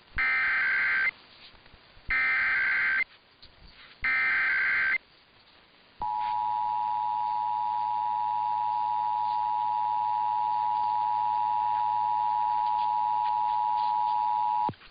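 Emergency Alert System header: three one-second bursts of SAME digital data tones, about a second apart, then from about six seconds in the EAS attention signal, a steady two-tone 853/960 Hz blare lasting about nine seconds. It opens the broadcast of a required monthly test.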